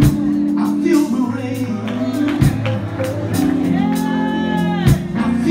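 Live gospel music in a church: held chords and a steady beat, with a man singing a long, bending phrase over it near the end.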